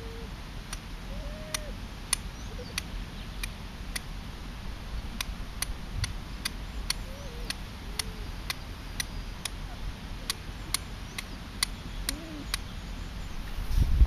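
Carbon-steel fire striker struck again and again down the edge of a piece of flint, sharp scraping clicks about twice a second, throwing sparks onto char cloth laid on the flint: the flint-and-steel method of fire lighting.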